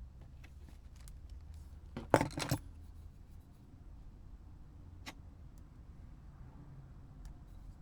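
A short clatter of small hard objects about two seconds in, then a single sharp click about five seconds in, with a few fainter handling clicks.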